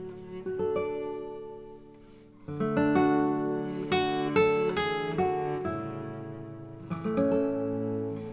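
Background music on acoustic guitar, plucked and strummed notes, with a louder strummed chord about two and a half seconds in.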